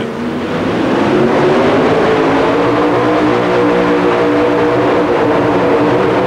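Supercharged engine of a 1923 Altered T super modified two-wheel-drive pulling truck at full throttle under heavy load, dragging a weight-transfer sled down the track. The engine note swells over the first second, then holds loud and steady, its pitch rising slightly.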